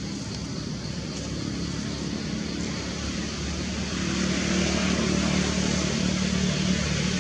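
A motor vehicle's engine running, with a low hum that grows louder about four seconds in.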